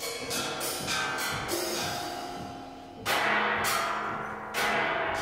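Live ensemble music carried by percussion: drum strikes that ring on and fade away, over held instrument notes. The two loudest strikes come about three and four and a half seconds in.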